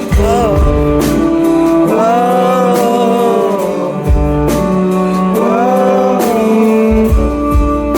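Live band music: guitar chords under a melody line, with low bass hits a few times.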